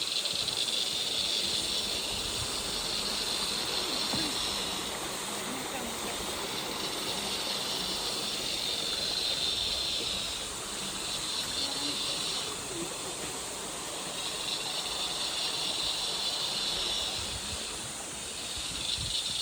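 Cicadas buzzing in a loud, high-pitched chorus that swells and fades in waves every few seconds.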